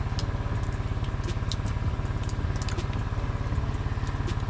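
Generator engine running steadily, a noisy, fast, even low pulsing, with a few faint light clicks over it.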